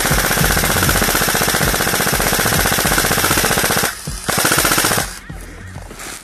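Airsoft electric rifle firing on full auto: one long, rapid rattling burst that stops about four seconds in, then a short burst about half a second later.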